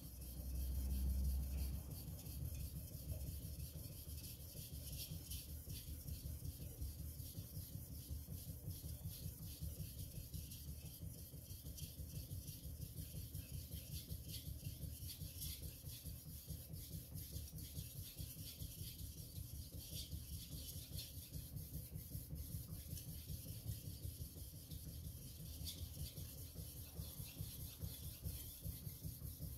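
A VG10 steel kitchen knife blade being stroked back and forth on an Arashiyama 6000-grit finishing water stone: a steady, even rasping rub in quick, regular strokes.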